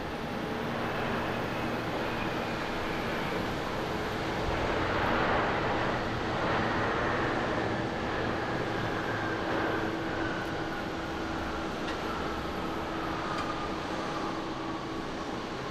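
A Boeing 777's twin jet engines in reverse thrust on the landing rollout. The engine noise swells about five seconds in, then a whine slowly falls in pitch as the engines spool down.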